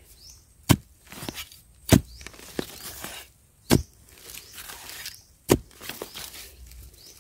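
A narrow metal digging spade chopping into dry, root-filled soil, four sharp strikes about a second and a half to two seconds apart, with lighter knocks and soil scraping and crumbling in between.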